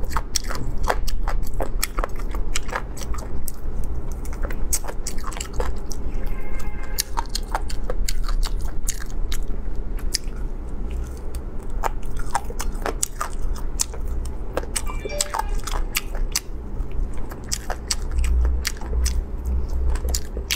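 Close-up eating sounds of a person biting and chewing spicy roasted chicken pieces on the bone, with many sharp crunches throughout. A steady low hum runs underneath.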